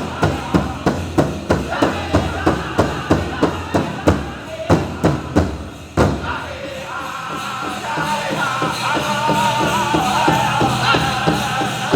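Powwow big drum struck in a steady beat of about three strokes a second, playing a contest song for chicken dancers. About six seconds in there is a brief dip and a hard stroke, then the singers' high wavering voices come in over the drum.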